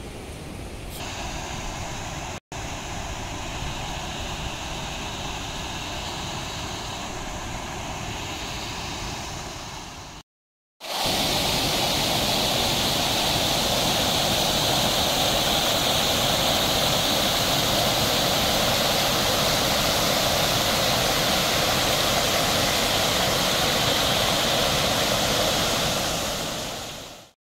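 River water rushing over a weir and rocks: a steady rush of white water, fainter at first, then louder and close after a short break about ten seconds in, fading out at the very end.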